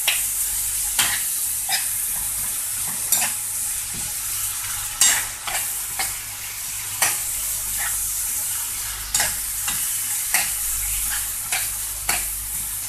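Diced chicken, peppers and tomato concentrate sizzling in a frying pan, with a steady hiss, while a utensil stirs them, scraping and knocking against the pan about once a second.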